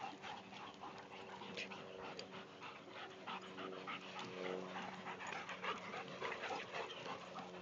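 Two dogs digging and nosing in a dirt hole: many short scratching and sniffing noises, with panting.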